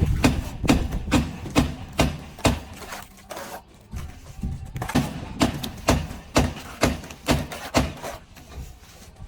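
Repeated sharp knocks of a hand tool striking a hard surface, about two a second, that pause briefly around the middle and then carry on.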